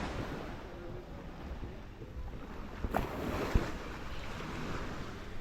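Ocean surf washing on the beach, with wind rumbling on the microphone. Two brief knocks come about three seconds in.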